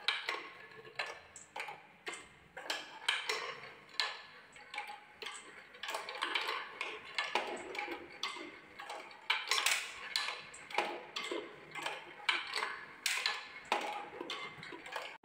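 Marbles rolling down a handmade wooden zigzag marble run: a steady rolling rattle broken by many irregular clacks and knocks as the balls drop at the turns and strike the wooden tracks.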